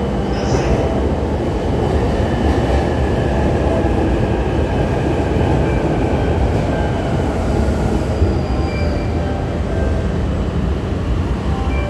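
JR Ueno-Tokyo Line electric commuter train running along the platform, a loud, steady rumble of wheels and running gear.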